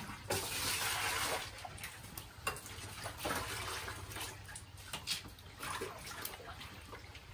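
Water running and splashing, loudest for about a second near the start, with scattered light knocks and clicks.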